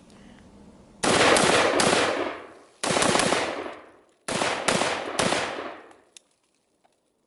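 Rifle shots from a short-barrelled 10-inch AR-15 pistol in 5.56, fired in three quick strings of two or three shots each. Each string rings and echoes for a second or so before the next.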